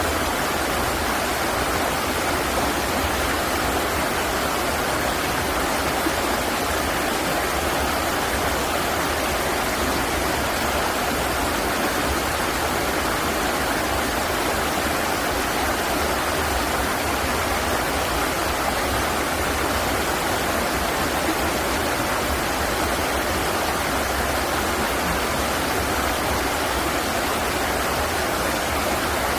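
River water rushing steadily: an even, unbroken hiss of flowing and splashing water, with a low rumble underneath.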